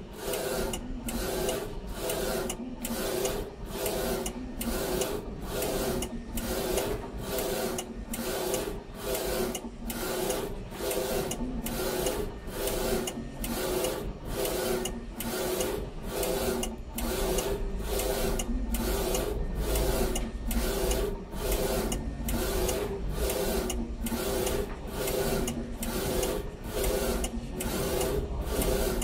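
NC-UV0406 UV flatbed printer's print-head carriage sweeping back and forth over a phone case, its drive whining with a short dip at each reversal, a little more than once a second. The printer is laying down a clear varnish gloss layer.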